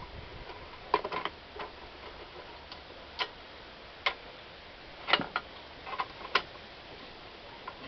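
Sharp metallic clicks and clinks at uneven intervals, about nine in all, from a spanner turning the threaded rods of screw-type coil-spring compressors as they tighten down on a front-strut spring.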